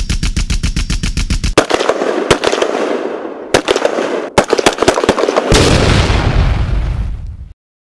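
Gunfire: a fast, regular run of shots at about ten a second, then scattered loud single shots over a crackling echo, then a dense loud burst that cuts off abruptly near the end.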